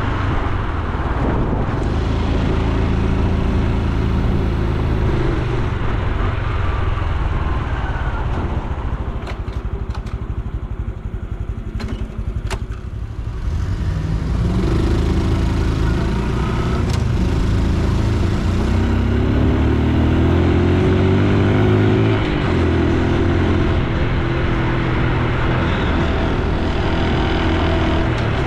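Honda Super Cub C125's air-cooled single-cylinder four-stroke engine and exhaust while riding in traffic. The engine eases off and quietens around the middle, with a few sharp ticks. It then pulls away again with rising pitch, and the pitch drops at a gear change about two-thirds in.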